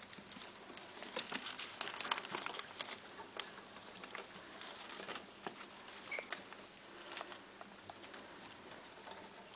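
Pet rats eating spaghetti off a plate: an irregular patter of small clicks and scrabbles from chewing and moving about, busiest in the first few seconds.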